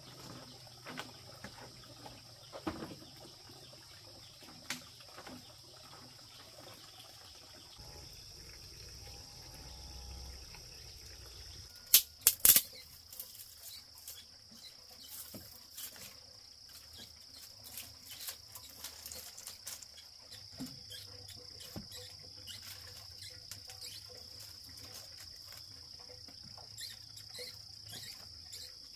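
Steady high-pitched insect chorus, with scattered small clicks and knocks of handling. Three sharp clacks in quick succession about twelve seconds in are the loudest sounds.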